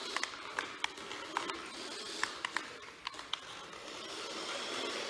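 A papier-mache-covered toy RC car running, its small electric motor giving a steady whirr that swells and fades. About a dozen sharp clicks and knocks are scattered through it.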